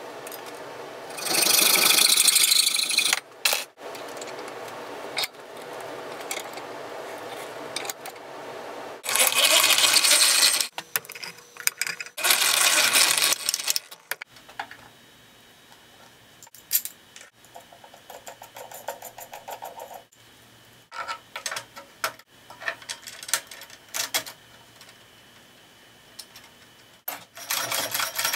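Three bursts of an electric drill boring metal, each about two seconds long, with metallic clinks from small parts being handled between them. About a second before the end, the foot-powered treadle scroll saw starts running.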